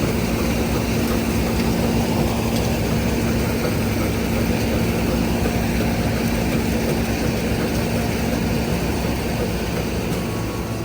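John Deere combine harvester running steadily while harvesting, its engine hum mixed with the clatter of its threshing machinery.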